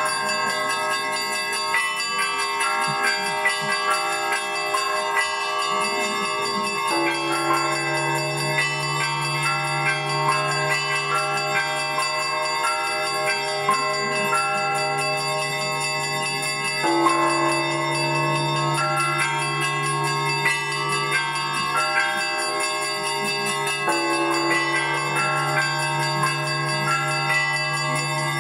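Russian Orthodox church bells rung by one bell-ringer in a continuous peal: smaller bells strike quickly and often over a dense wash of ringing. A deep low bell comes in about seven seconds in and is struck again twice later.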